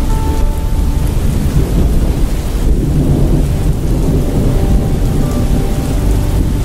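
Steady heavy rain with a low, continuous rumble of thunder.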